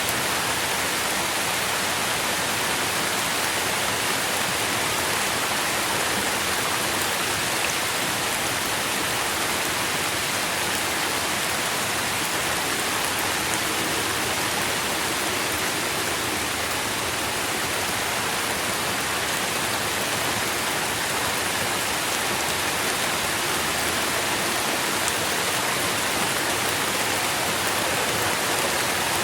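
Forest ambience recording: a steady, even rushing hiss that holds at one level throughout, with a few faint ticks and no bird calls standing out.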